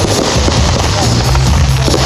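Dense crackling and popping from fireworks over loud music with a steady bass line.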